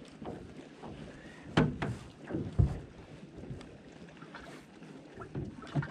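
Several sharp knocks and thumps on a small fishing boat over a low steady background, the two loudest about a second apart early on and another just before the end.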